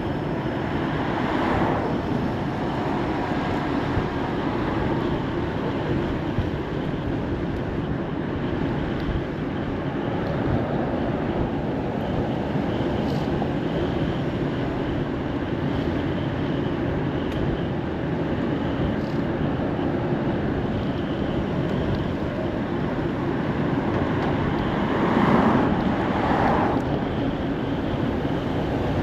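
Steady wind and road noise from riding an electric moped, with no engine note. The noise swells louder about a second in and again near the end.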